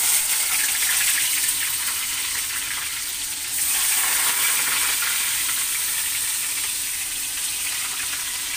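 Sliced onions dropped into hot oil in a kadhai, sizzling loudly from the moment they go in. The sizzle swells again about three and a half seconds in, then eases slightly as they fry.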